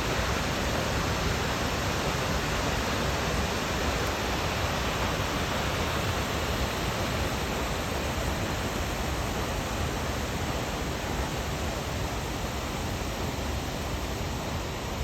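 Waterfall: a steady rush of falling water, unbroken.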